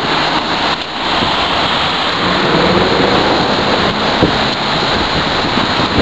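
Loud steady rushing noise of wind buffeting the camera's microphone as it moves alongside a BMX rider.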